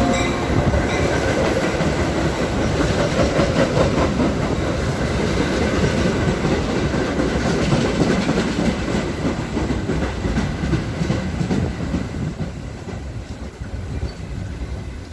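Metra commuter train led by an F40PH diesel locomotive rolling past close by, its wheels clacking steadily over the rail joints. The sound fades gradually over the last few seconds as the train slows.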